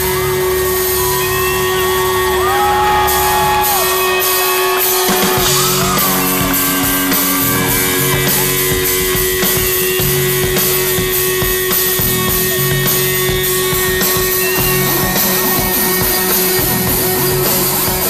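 Live rock band playing the instrumental opening of a song through a large concert PA: a steady held keyboard-like note throughout, with a pulsing bass beat coming in about five seconds in. A few whoops and shouts from the crowd near the start.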